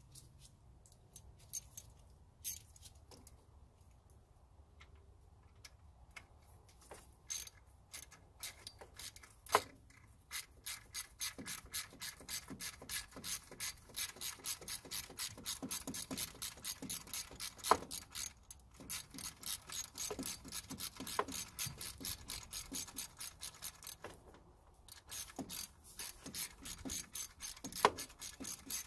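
Hand socket ratchet clicking as it turns a bolt on the power steering pump's tensioner bracket, loosening it. A few scattered clicks at first, then a long run of quick, even clicking, broken twice by short pauses.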